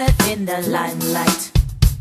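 Background music: a song with a drum kit beat and a gliding melodic line.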